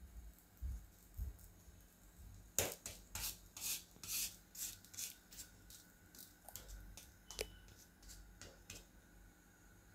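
Wooden spatula pressing and scraping a kulcha flatbread against a tawa griddle as it roasts: faint scrapes and light taps, bunched about two to five seconds in, with a few scattered ones after.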